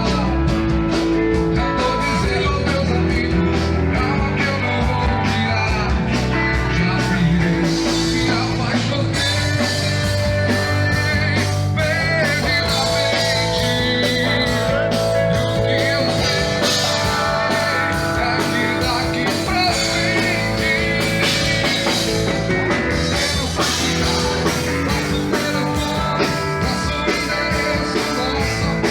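A live band playing a pop song, with a singer over a steady beat.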